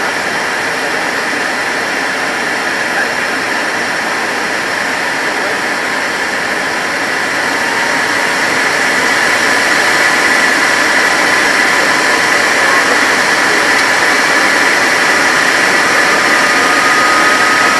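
The Handley Page Victor K2's four Rolls-Royce Conway jet engines running, heard from inside the cockpit: a steady rush with a high whine, growing louder about halfway through.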